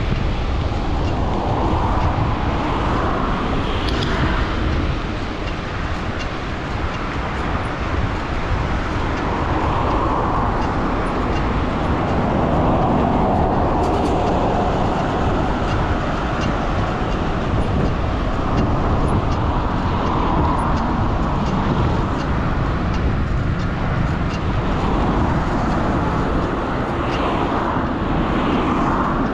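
Road traffic passing close by: a steady rumble and tyre hiss that swells as cars and a bus go past.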